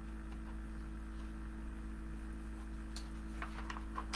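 Quiet room tone with a steady electrical hum, and a few faint clicks about three seconds in.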